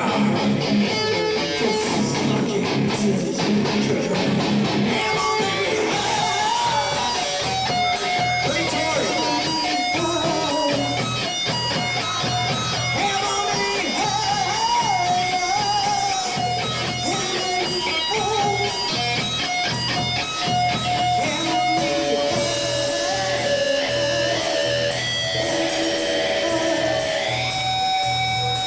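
Instrumental stretch of a rock song led by electric guitar, with a bending melodic line over a steady beat and no vocals.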